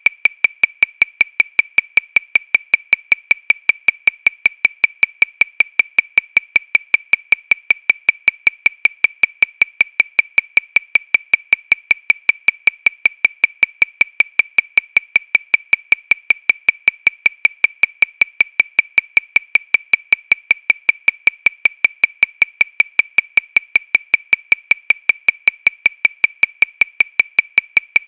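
Metronome clicking steadily at 314 beats per minute, about five short, high-pitched clicks a second, all alike and evenly spaced.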